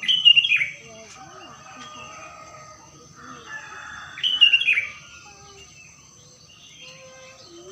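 Birds chirping in two short bursts of quick falling notes, one at the start and another about four seconds in, over a steady high insect whine.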